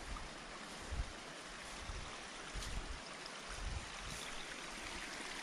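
Steady rushing hiss of a nearby mountain stream, with a few soft low thumps about a second apart.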